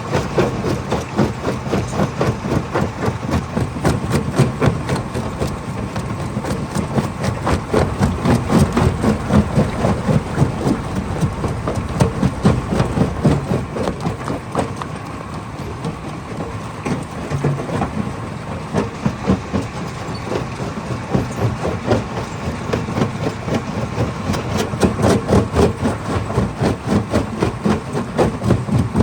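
Stone-crushing hammer crusher running and breaking rock: a loud, continuous dense clatter of rapid impacts over a steady machine rumble, swelling and easing in loudness.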